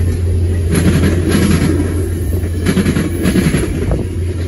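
Streamlined stainless-steel VIA Rail passenger cars rolling past, their wheels clacking over the track in an uneven run of clicks over a steady low rumble.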